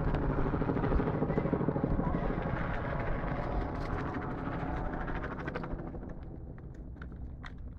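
A motor running with a fast, even pulsing beat, loud at first and fading away after about five seconds.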